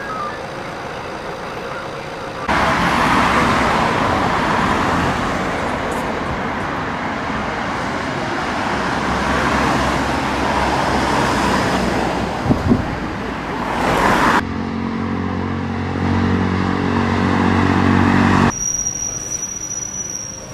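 Road traffic at an accident scene: vehicles passing with a rushing sound that swells and fades. Then a nearby vehicle engine runs steadily, and near the end a quieter stretch carries a thin high steady tone. The sound changes abruptly several times, at cuts between shots.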